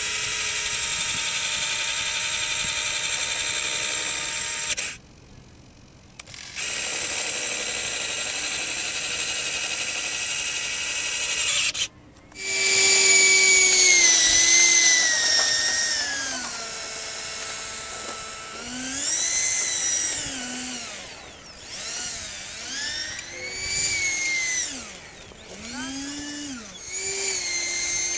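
Whine of the 90 mm electric ducted fan of an F-100 Super Sabre jet model: first a steady high whine with a short break, then, about halfway, a louder whine that swoops up and down in pitch with throttle changes and passes.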